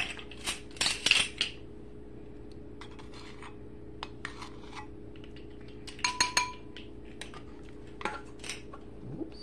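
Measuring spoon and kitchen utensils clinking and tapping against a bowl and ingredient containers in scattered bursts while dry ingredients are measured out. About six seconds in, one clink rings briefly.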